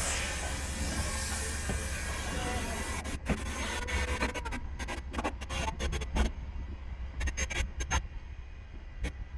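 Steam locomotive hissing with escaping steam, the hiss dying away about three seconds in, then scattered sharp clicks and knocks over a steady low rumble.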